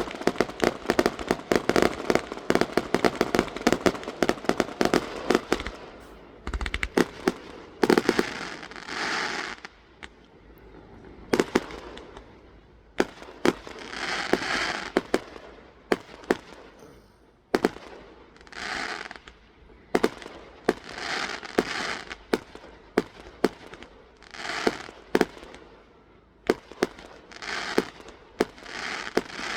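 Fireworks going off. For the first several seconds there is a rapid, dense run of cracks. After that come separate bangs every couple of seconds, each followed by a crackling hiss.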